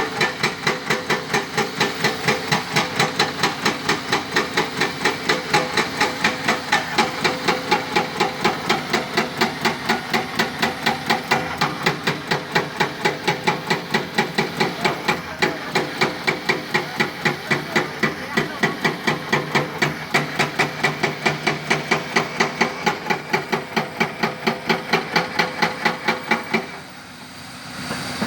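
Excavator-mounted hydraulic rock breaker hammering stone: a fast, even run of blows about four a second over the engine, which stops abruptly near the end.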